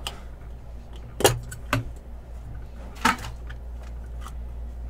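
A few sharp plastic clicks and clacks from a snap-shut plastic card case (top snap holder) being pried open and handled: two about a second in, close together, and another about three seconds in.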